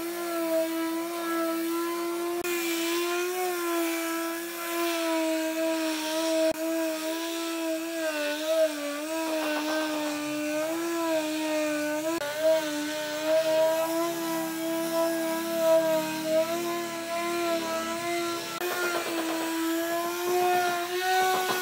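Cordless Makita finishing (sheet) sander running over a solid wood tabletop: a steady motor hum that wobbles slightly in pitch as it is pushed across the surface.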